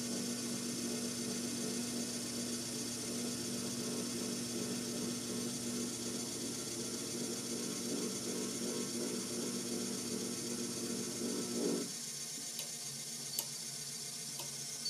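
Landice treadmill's elevation (incline) motor running steadily as the deck lowers toward zero incline, over the hum of the treadmill; the motor sound cuts off about twelve seconds in, leaving a fainter steady hum with a few light ticks.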